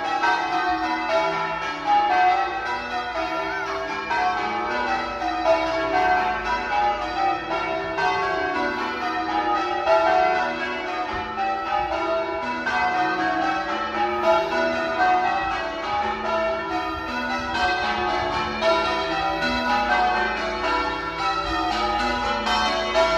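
Church bells pealing, several bells of different pitch striking one after another in quick, continuous succession in the English change-ringing manner.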